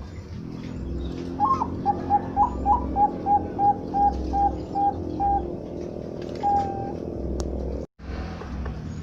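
Zebra dove (perkutut bangkok) singing: a few upward-flicking opening notes, then a run of about a dozen short, evenly spaced coos at about three a second, and one longer coo a little later. A steady low hum runs underneath, and the sound cuts out for a moment near the end.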